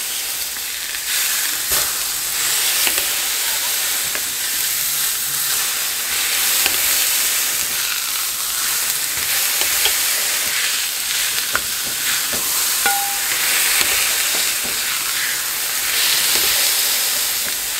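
Ground-beef burger patties sizzling steadily on a hot griddle while they are smashed flat with a metal burger smasher and spatula, with a few light clicks and scrapes from the metal tools.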